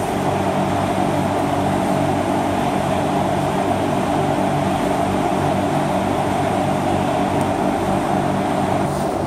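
Steady mechanical drone: a low hum under an even rushing noise, like a running engine or fan.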